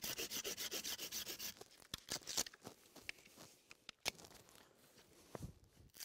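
A knife sawing through the loose end of a rope lashing, rapid rasping strokes about ten a second for the first second and a half. After that come scattered small clicks and rustles as the cut end is handled.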